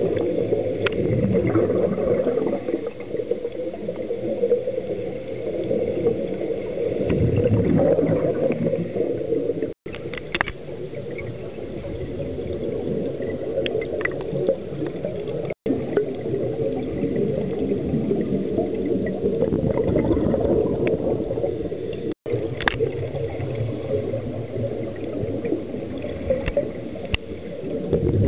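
Underwater scuba-diving sound: gurgling, rumbling exhaust bubbles and breathing from divers' regulators, swelling and easing in surges, muffled as heard through an underwater camera housing. The sound cuts off briefly three times.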